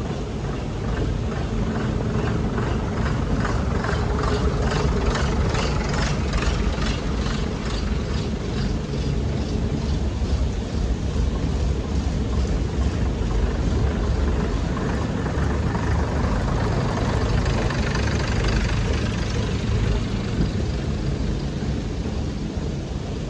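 Class 101 diesel multiple unit running slowly past at close range, its diesel engines droning steadily. For the first half there is a quick, even clicking.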